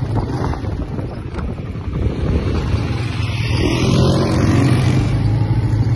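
Quad bike (ATV) engine running as it is ridden over sand dunes, getting a little louder about halfway through.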